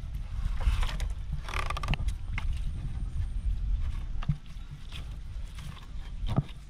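Rope being hauled in by hand on a bamboo raft, rubbing and knocking against the bamboo poles in scattered short knocks, over a steady low rumble of water and wind.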